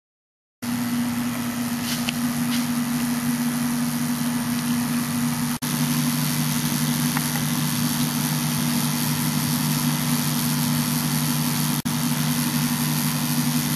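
Steady electrical hum with a hiss from an HHO electrolysis rig running: dry cells driven by a pulse-width modulation controller with a fan-cooled module. The hum holds two low steady tones and drops out for an instant twice.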